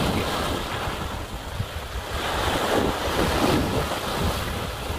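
Sea waves washing in and breaking over low shoreline rocks, a continuous surf noise that swells and eases, with wind buffeting the microphone.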